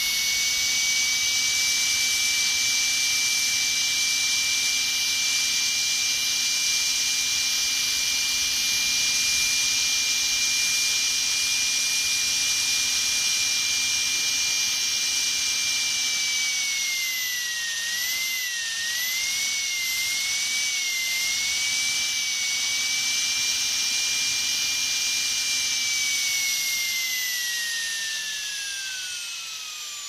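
Dentist's drill running with a steady high-pitched whine. About seventeen seconds in, its pitch dips and wavers for several seconds before steadying, and near the end it winds down, the pitch falling away.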